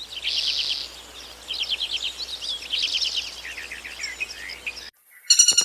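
A songbird singing, several phrases of rapid, short, high trilled notes, cut off abruptly near the end.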